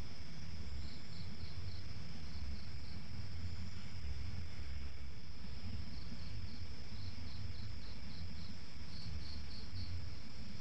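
Night-time insect chorus: a steady high cricket trill with a nearer cricket chirping in short runs of about five chirps a second, several runs in a row, over a low steady rumble.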